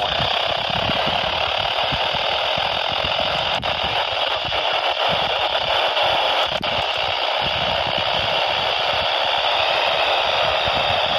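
Steady hiss of static from a NOAA Weather Radio receiver with no clear signal coming through, an even rush of noise with no voice in it.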